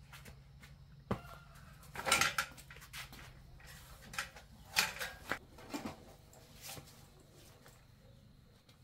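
Scattered metallic clinks and knocks of hand work on a bicycle's rear wheel hub and chain, the loudest cluster about two seconds in, over a faint low hum that fades out about halfway through.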